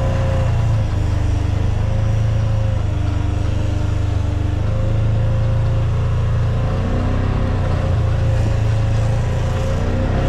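Side-by-side utility vehicle's engine and drivetrain running steadily as it drives across a pasture, a constant low drone inside the open cab.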